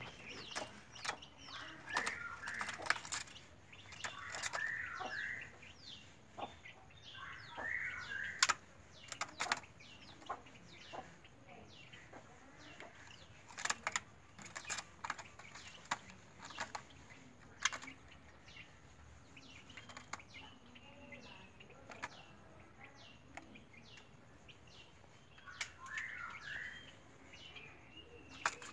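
Young white-rumped shama (murai batu) chick calling in many short chirps that fall in pitch, mixed with frequent sharp clicks and taps.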